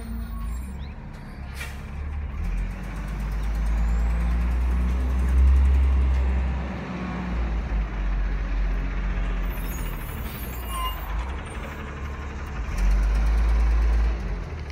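Front-loader garbage truck's diesel engine running as the truck drives off, pulling harder twice, loudest about five seconds in and again near the end, with a deep rumble underneath.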